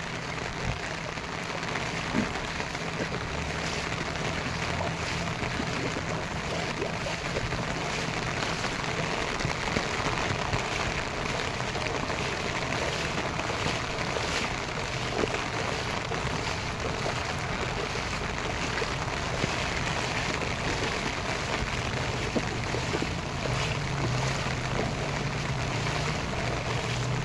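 Steady rain falling on standing floodwater, an even hiss with a faint low hum underneath.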